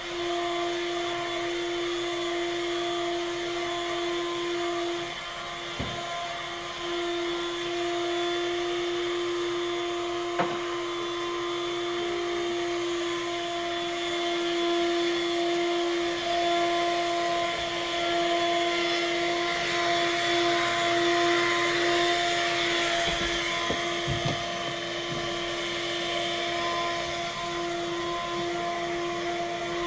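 Vacuum cleaner running steadily, a motor whine over an airy hiss that grows somewhat louder around the middle, with a few brief knocks.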